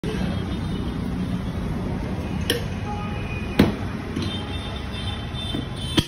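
Steady low rumble of street traffic, with two sharp knocks about a second apart around the middle.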